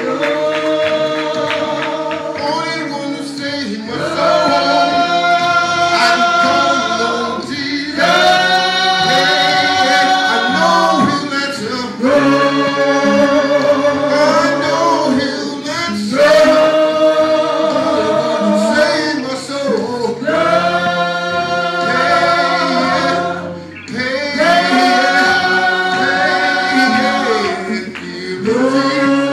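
A small gospel vocal group singing in harmony, holding long chords in phrases of about four seconds each.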